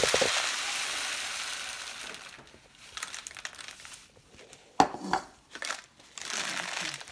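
Bird seed poured from a cup into a rolled-paper funnel and down into a plastic bottle: a grainy, rattling hiss that tapers off about two and a half seconds in. Then scattered light ticks and a few sharp knocks, and the pouring starts again near the end.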